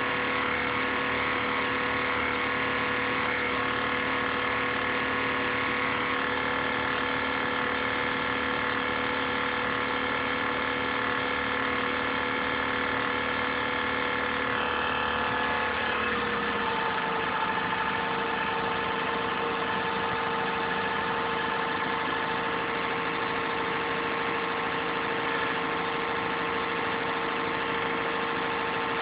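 INSYS GameForce laptop's cooling fan running with a steady whirring hum made of several held tones: the strange noise the owner reports. A little past halfway the hum shifts slightly lower and takes on a new higher tone. Heard somewhat distorted through a phone's microphone.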